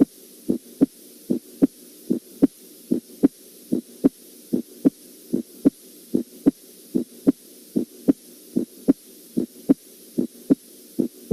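Recorded normal heart sounds, S1 and S2: an even lub-dub with a pair of beats a little more than once a second, over a faint steady hiss.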